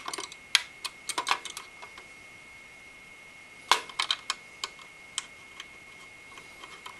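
Small sharp metal clicks and taps as thumb screws are handled and started onto the bolts of a CPU cooler's mounting rail, coming in two short clusters: one at the start and another around the middle.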